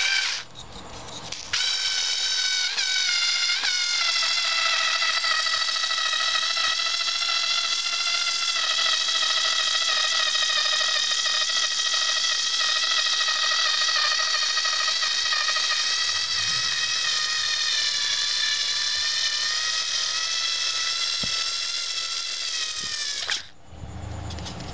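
Black & Decker A7073 alkaline-battery cordless screwdriver's motor and gearbox whining as it drives a screw into a wood block. After a brief stop about half a second in, it runs continuously for over twenty seconds, its pitch sagging slightly as the screw goes deeper, and cuts off about a second before the end.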